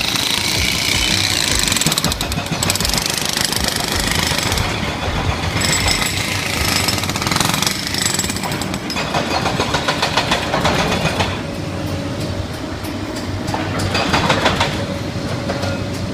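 Hydraulic hammer breaker on a backhoe excavator pounding with rapid repeated blows in stretches, over the excavator's engine running.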